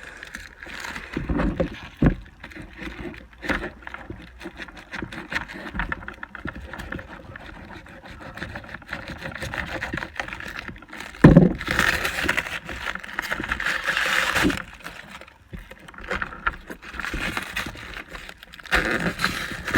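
Package being handled and opened: scattered knocks, clicks and scrapes, a loud thump about eleven seconds in, then a few seconds of rustling, with more rustling near the end.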